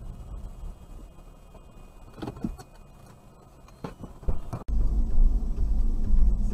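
Car driving, heard from inside the cabin: a low road and engine rumble with a few sharp knocks in the middle. About two-thirds of the way through, the rumble suddenly becomes much louder.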